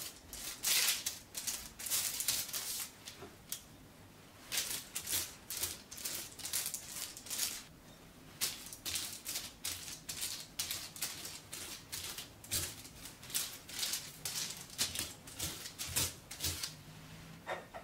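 Pastry brush spreading soft butter over baking paper: quick scratchy strokes across the paper, several a second, with two short pauses.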